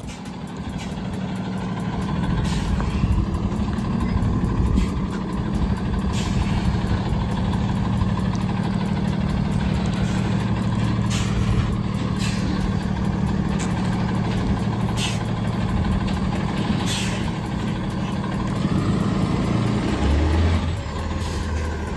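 Tow truck's engine idling steadily, with a few brief hissing sounds over the drone.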